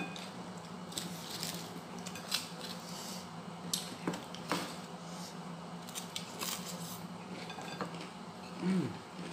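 Close-up eating sounds: scattered small clicks, crackles and smacks of chewing and of fingers picking fried fish off its bones on a ceramic plate, over a steady low hum. Near the end a brief pitched sound rises and falls, the loudest moment.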